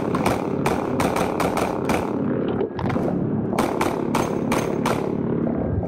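Rapid pistol fire from a compensated Open-division race gun in .38 Super: quick strings of shots, about three to five a second, with a short break a little before the halfway point.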